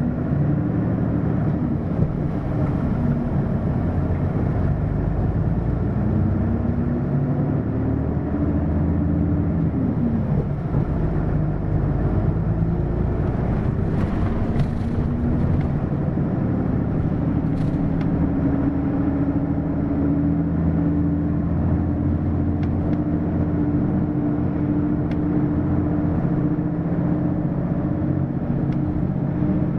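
Hino LKG-KV234N3 city bus's diesel engine pulling through the gears, its note rising and then dropping at a shift about ten seconds in, then running at a steady pitch while the bus cruises, heard from inside the cabin.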